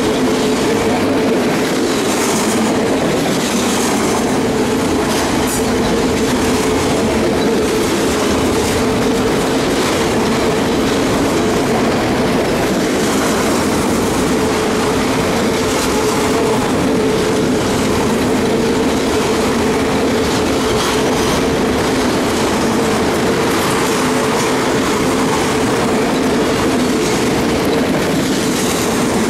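Railroad cars rolling steadily past, their wheels clicking over the rail joints, with a steady tone from the wheels under the noise.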